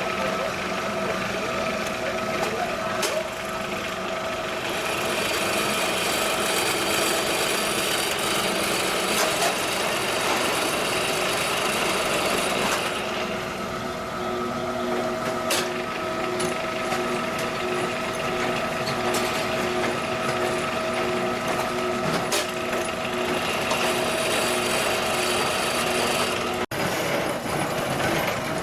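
QTJ4-25 semi-automatic concrete block machine running: a steady mechanical din with several held hum tones and a few sharp clacks. For about eight seconds in the first half it turns harsher and brighter.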